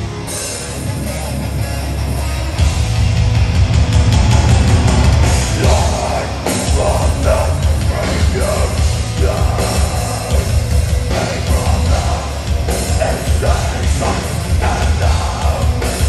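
Live heavy hardcore band playing loudly: distorted electric guitars, bass and drum kit, heard from within the crowd. The band gets louder about two and a half seconds in.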